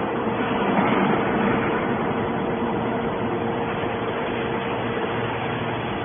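Hydraulic scrap-metal baler running: the steady hum of its motor and hydraulic pump, with one constant tone over a mechanical noise.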